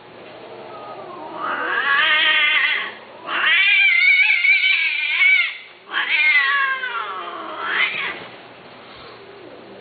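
Persian cat yowling: three long, drawn-out calls with a wavering pitch, one after another with short breaks, the middle one the longest.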